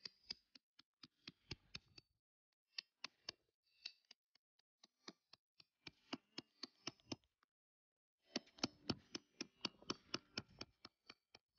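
Faint, quick runs of light taps or clicks, about five a second, coming in several bursts with short pauses between them.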